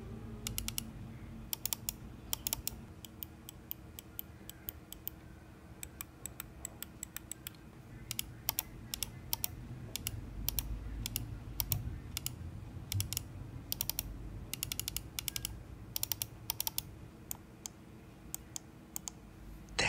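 Logitech G203 mouse's main button, an Omron switch, being clicked over and over in irregular pairs and short runs; the clicks are crisp but not very loud.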